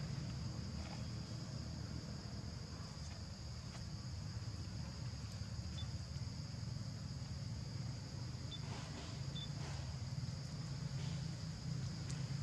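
Outdoor ambience dominated by a steady high-pitched insect drone, with a low steady rumble underneath and a few faint scuffs and tiny chirps.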